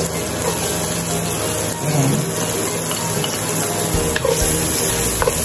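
Diced red onion sizzling in hot oil in a nonstick wok as it is stirred with a spatula: a steady frying hiss at the start of a sauté.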